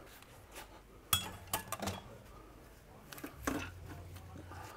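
Scattered light metal clinks and knocks from a ratchet, long extension and 13 mm socket being worked to back out a bolt on the engine mount bracket.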